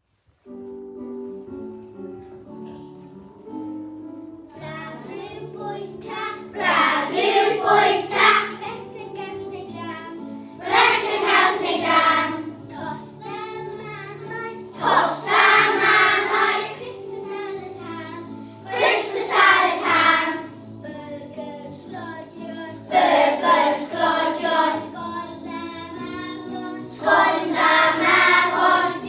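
Music with a group of voices singing. After a quiet instrumental opening of about six seconds, sung phrases come in and recur every few seconds over a steady accompaniment.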